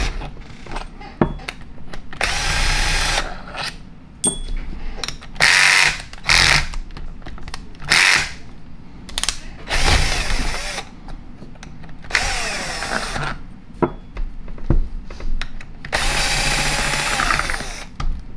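Cordless drill/driver spinning the long socket-head cap screws into the air impact's housing through a long hex-bit extension, in about eight short bursts. Its motor whine rises and falls with each burst, and there are a few small metallic clicks between them.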